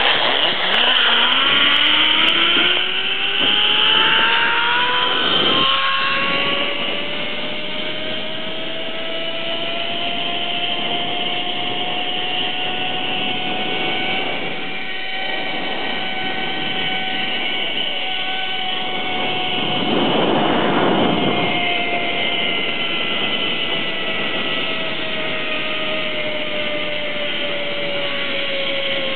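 Zip-line trolley pulleys running along a steel cable: a whine that rises in pitch as the rider picks up speed over the first several seconds, holds steady, then sinks slowly near the end as the ride slows, with a rush of air and noise beneath it.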